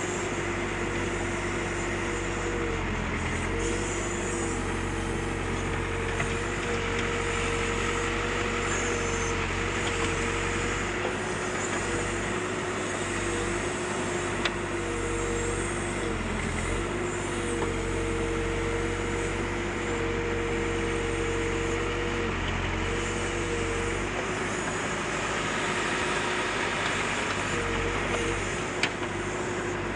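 Backhoe loader's diesel engine running steadily with a pitched drone that sags briefly in pitch several times, as when the engine takes load while digging. A few faint clicks come through now and then.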